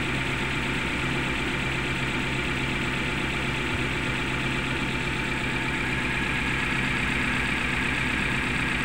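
Suzuki Carry Futura pickup's four-cylinder engine idling rough and shaking, as if one cylinder's ignition is not firing: a misfire at idle.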